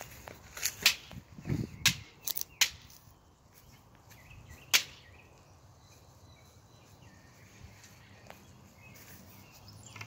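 A child handling a board against a metal hand truck: a string of sharp clacks and knocks with a dull thud in the first few seconds, then one last sharp knock about five seconds in.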